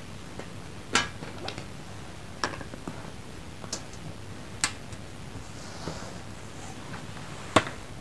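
Coloured pencils being handled: about five sharp clicks and taps as pencils are picked up, knocked and set down, the loudest near the end, over a steady low background hum.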